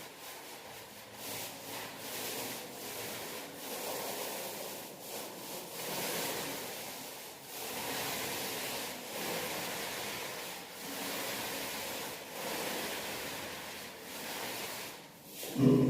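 Paint being spread on a wall in repeated strokes: a rubbing, hissing sound that rises and falls about once a second. Near the end it is cut off by a sudden, much louder low sound.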